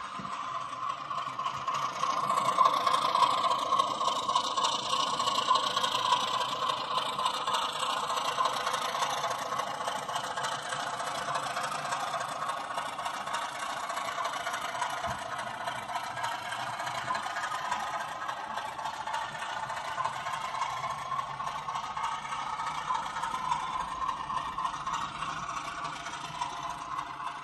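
Sound decoder in a 00 gauge DCC model locomotive playing a diesel engine sound through the model's small onboard speaker. It builds up over the first couple of seconds, then runs on steadily with the engine note slowly shifting.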